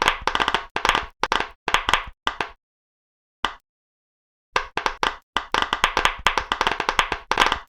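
Silicone pop-it fidget bubbles being pressed, giving rapid strings of small sharp pops in short runs with pauses between. There is a near-silent gap of about two seconds in the middle, broken by one brief pop, then a longer unbroken run of pops to the end.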